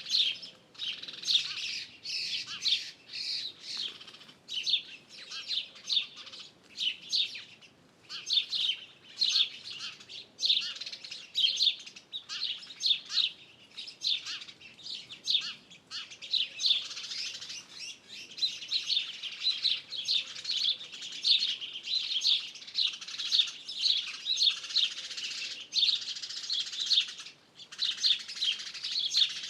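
Many songbirds chirping and singing together in a dense, almost unbroken chorus of high, quick chirps, with a brief lull near the end.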